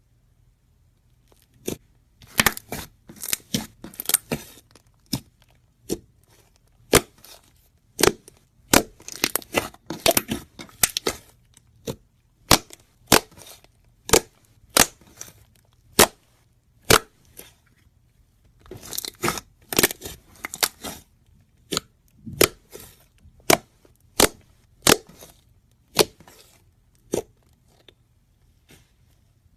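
Slime being worked, letting out sharp popping clicks from trapped air. Some pops come singly about a second apart, others in quick crackling clusters.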